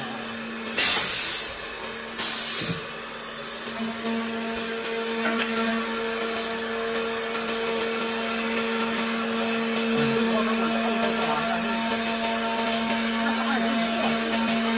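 CNC milling spindle running with a steady whine as its cutter mills the edge of a solid-wood panel, with chip and cutting noise. Two short, loud hisses come about a second in and just after two seconds, and the cutting grows slightly louder and steadier from about four seconds on.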